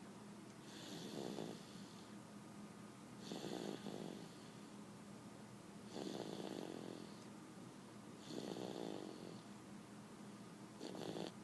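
Slow, even snoring: five breaths about two and a half seconds apart, each a short rasp with a breathy hiss.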